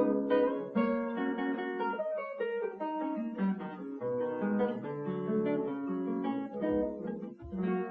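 Solo classical guitar playing a quick run of plucked notes that ring into one another.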